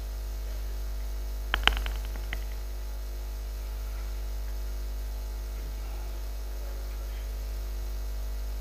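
Steady low electrical mains hum from the microphone and sound system, with a few sharp clicks about one and a half to two and a half seconds in.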